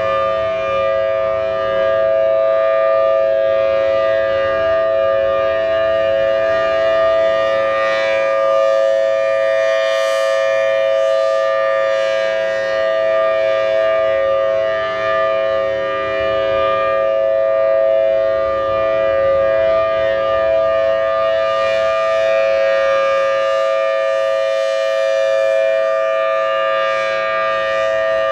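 Federal Signal Thunderbolt 1000T outdoor warning siren sounding a steady two-tone chord at full speed, its pitch held level with only slight rises and falls in loudness.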